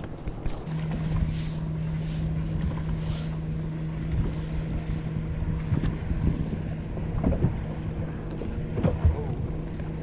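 Wind buffeting the microphone over a steady motor hum from the boat that starts about a second in, with a few light knocks later on.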